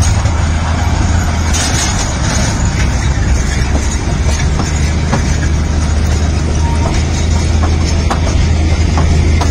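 Narrow-gauge Darjeeling Himalayan Railway toy train passing slowly at close range: a steady low engine drone with occasional clicks from the coaches' wheels on the rails.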